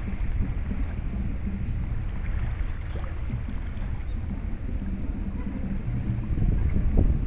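Wind buffeting the microphone: a steady low rumble with uneven gusts, stronger near the end.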